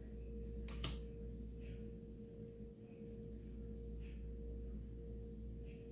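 A faint, steady tone held at one pitch over a low hum, with a single click just under a second in.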